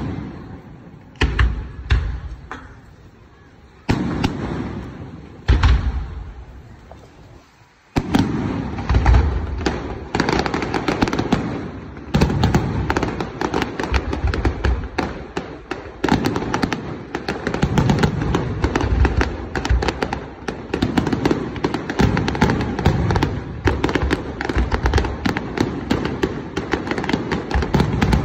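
Aerial fireworks shells bursting: a few single booms in the first eight seconds or so, each fading away, then from about eight seconds in a dense, continuous barrage of booms and rapid crackling.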